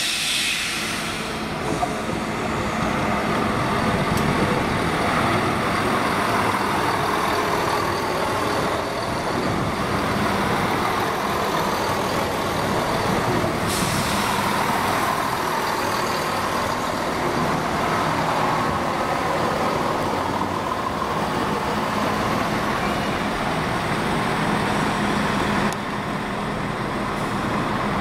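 Class 168 diesel multiple unit running through a station: a steady diesel engine drone with wheel and rail noise, opened by a sharp hiss of air.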